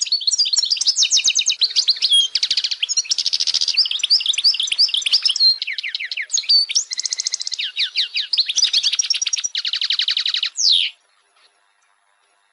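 European goldfinch singing: a long, fast, continuous run of twittering notes, quick pitch sweeps and rapid rattling trills, which breaks off about eleven seconds in.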